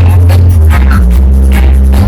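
Music played very loud through a sound system: a heavy, held bass line that changes note every half second or so, under drum hits.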